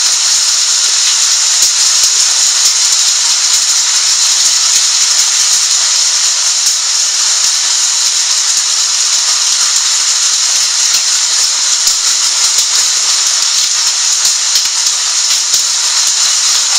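Heavy hailstorm: hail and rain pouring down in a dense, steady hiss, with scattered sharp ticks of hailstones striking.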